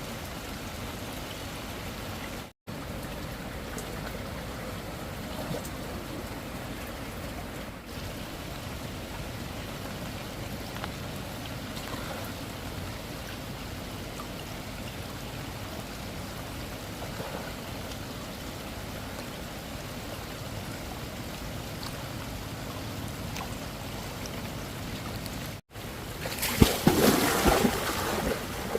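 Steady rushing of flowing water, broken twice by an instant of silence, with a louder, irregular burst of noise near the end.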